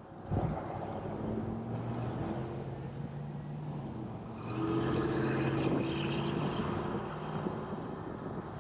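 Road vehicle engine running with tyre and road noise. A steady engine hum comes in suddenly just after the start and grows louder and brighter about halfway through.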